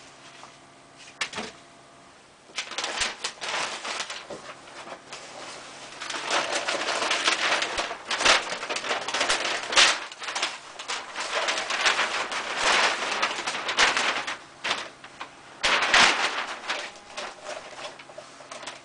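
Brown packing paper and plastic wrap being pulled back and handled as a large flat glass panel is unwrapped: irregular rustling and crackling in bursts, starting a couple of seconds in.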